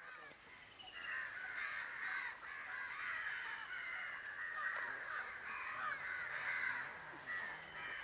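Many birds calling at once in a dense chorus of quick, overlapping short notes, starting about a second in.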